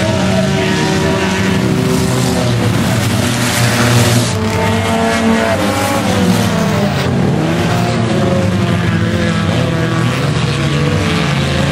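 Several small stock-car racing engines running hard together as the field laps the track, their overlapping engine notes rising and falling as cars pass close by, loudest about four seconds in.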